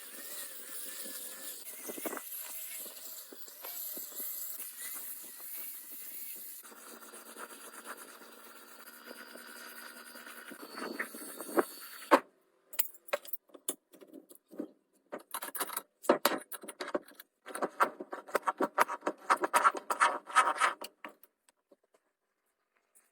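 A small motor runs steadily with a whirring hum, then cuts off abruptly about twelve seconds in. Irregular clicking and clattering of small metal parts follows.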